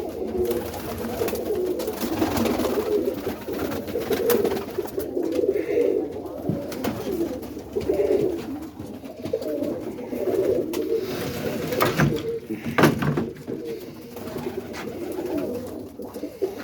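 Many roller pigeons cooing together in a loft, a continuous overlapping murmur of coos, with a couple of sharp clatters about twelve seconds in.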